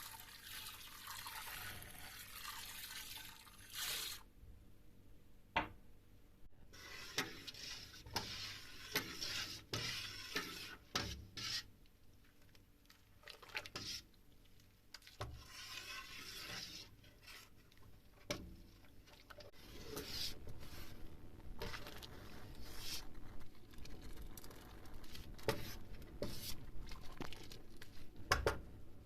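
Kitchen work sounds: stretches of running or pouring water or liquid, with scattered clinks and knocks of utensils and dishes.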